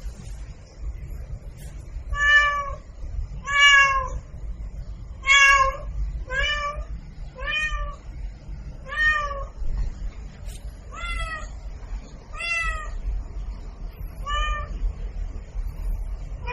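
A domestic cat meowing over and over: nine short meows, about one and a half seconds apart, over a low steady rumble.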